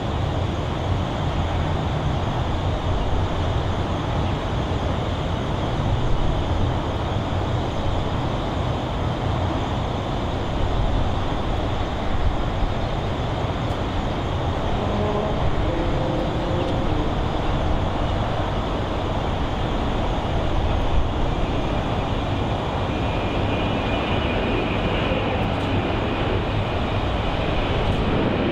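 Jet airliner with rear-mounted engines at takeoff power on its takeoff roll, a steady loud rush with a deep rumble underneath. A faint whine rises above it near the end.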